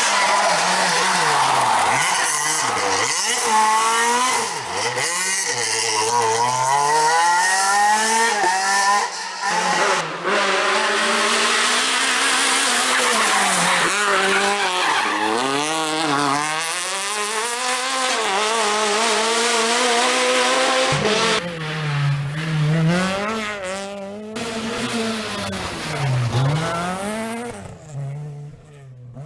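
Renault Clio R3 rally car engine revving hard, the pitch climbing and dropping again and again through gear changes. The sound changes abruptly twice, as the footage cuts from one car or run to the next.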